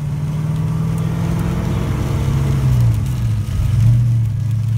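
1984 Foxbody Mustang's engine and road noise heard from inside the cabin while driving. The engine note holds steady, dips about three seconds in, then picks up again.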